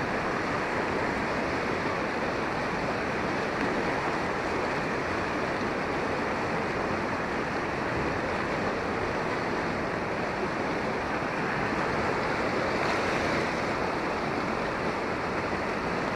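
Muddy floodwater rushing and churning past, a steady, unbroken noise.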